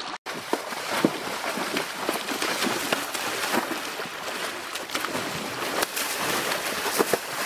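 Water splashing and sloshing as a horse thrashes through a shallow creek, with many small irregular splashes.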